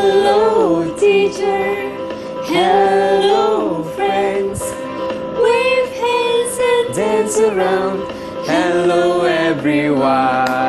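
Show's theme song: sung phrases in held notes over backing music.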